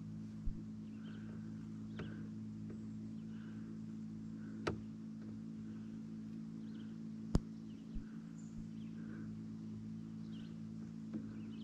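A steady low electric hum, like a small motor running, with faint chirps repeating a little faster than once a second and a few sharp clicks scattered through.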